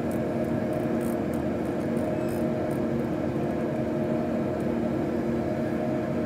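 Steady drone with a few constant low hums in a Boeing 737-800 flight simulator's cockpit: the simulated jet engine and airflow noise of the climb at climb thrust, played over the simulator's sound system.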